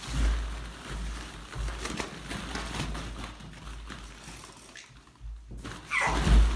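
Plastic ball-pit balls rattling and clattering as a puppy wades and bounds through them, with a short, louder vocal sound near the end.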